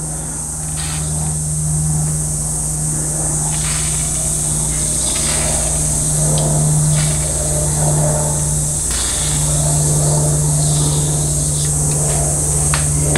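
A steady low machine hum with a high hiss over it, dropping out briefly twice. Several light clicks and taps come through it, from small metal valve-body parts being handled and lubed.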